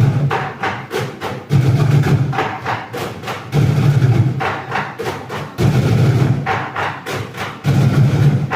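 Bucket drumming: several drummers beating sticks on plastic buckets in a fast, dense rhythm, with deep bass hits in a phrase that repeats about every two seconds.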